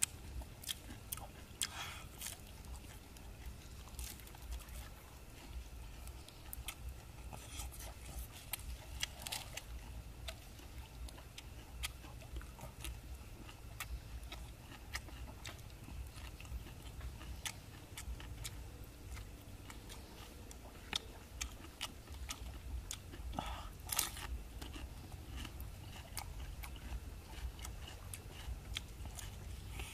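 A person chewing and biting food, with frequent short crunches and clicks.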